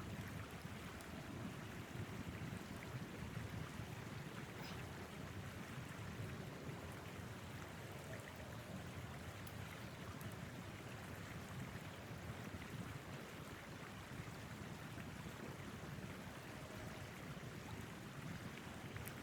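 Steady low rushing of blizzard wind, with a few faint ticks.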